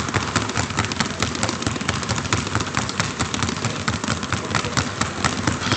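Two basketballs power-dribbled at the same time on a hardwood gym floor: a rapid, steady run of hard bounces.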